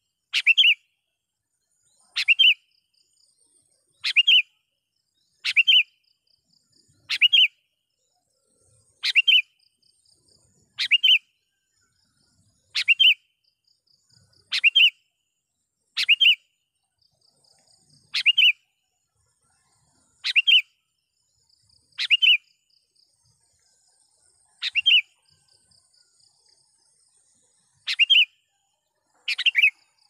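Sooty-headed bulbul (kutilang) calling: a short, loud phrase repeated about every two seconds. It is the bird's call to rival bulbuls.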